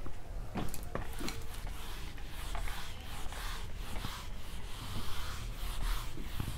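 A handheld whiteboard eraser rubbing across the board in quick, repeated back-and-forth strokes, wiping off marker writing.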